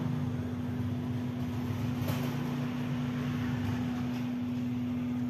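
Steady mechanical hum with one constant low tone and a rougher rumble beneath it.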